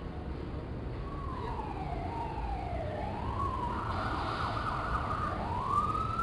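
Emergency vehicle siren wailing, starting about a second in, its pitch sweeping down and up, over a steady low rumble of city street traffic.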